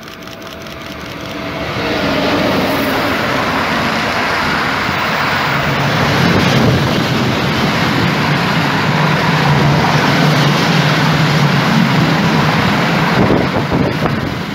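Freight train hauled by an electric locomotive, carrying lorries on low-floor wagons, passing close by. The sound builds over the first two seconds as the train arrives, then holds as a loud, steady rumble and rush of wheels on rails.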